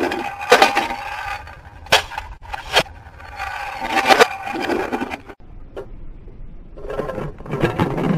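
A toy car rolling and scraping down a plastic jump ramp, with several sharp knocks as it clatters against the track and lands.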